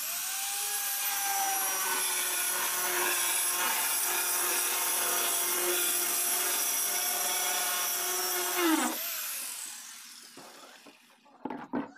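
Angle grinder with a cutting disc running and slicing lengthwise through a plastic drum: a loud, steady whine with the rasp of the cut. About nine seconds in the motor is switched off and its pitch falls as it winds down. A few knocks follow near the end as the split plastic is handled.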